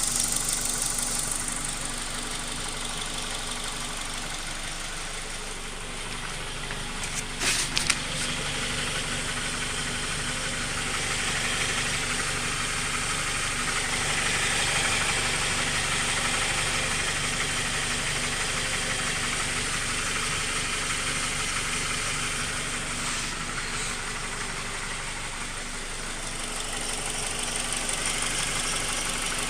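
Honda K20 inline four-cylinder engine idling with a knock from the bottom end, which the owner cannot place as rod knock, piston slap or timing chain tensioner knock; a valve adjustment has not cured it. A few sharp clicks sound about seven seconds in.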